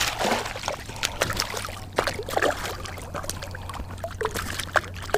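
Hooked speckled sea trout splashing and thrashing at the water's surface as it is reeled in and lifted out: a run of irregular sharp splashes and drips.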